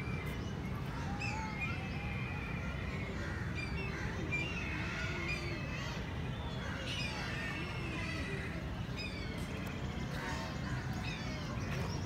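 Birds chirping and calling with many short rising and falling notes, crows cawing among them, over a steady low rumble.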